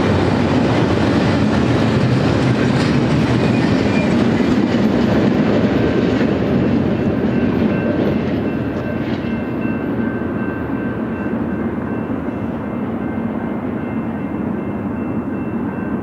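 Double-stack intermodal container train's well cars rolling past on the rails, a steady rumble of wheels and cars. It fades and dulls from about halfway through as the end of the train passes and moves away, with a few faint steady high tones lingering.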